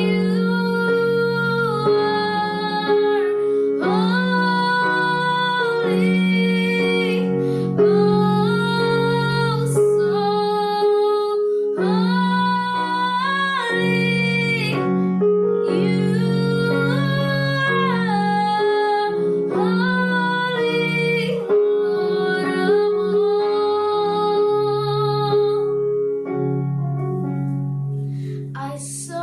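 Female voice singing a slow worship melody in long held notes over sustained keyboard chords.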